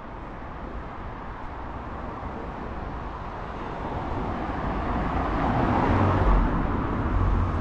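Street traffic: a motor vehicle approaching, growing steadily louder over several seconds, with a low rumble strongest near the end.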